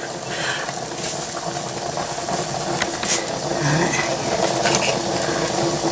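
A metal serving spoon clinking and scraping a few times in a pie dish of chicken pot pie, over a steady mechanical hum from a running kitchen appliance.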